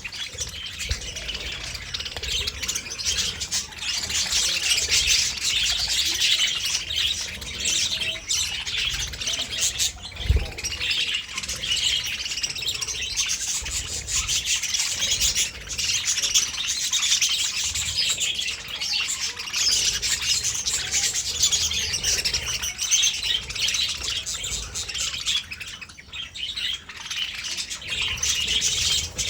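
A group of budgerigars chattering and warbling without a break, many high chirps overlapping.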